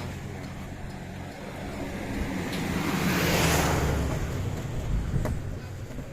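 A motor vehicle drives past, its noise swelling to a peak about three and a half seconds in and then fading, over a steady low hum.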